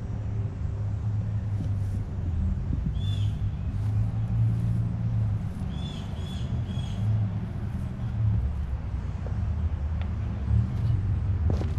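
Steady low rumble of road traffic, with a few short bird chirps about three seconds in and a quick run of them around six to seven seconds.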